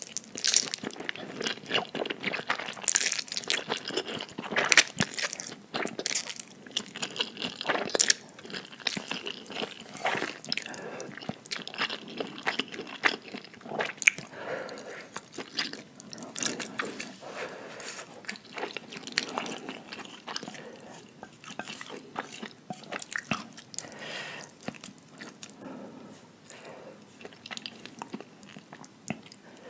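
A person eating saucy spicy instant noodles close to the microphone: slurping the noodles in and chewing, with many wet mouth clicks and smacks. The slurps are loudest in the first few seconds.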